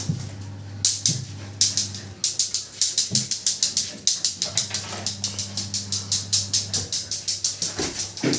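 Rapid, evenly repeated scratchy clicks on a hard stone floor, about five a second, starting about two seconds in. A steady low hum runs beneath.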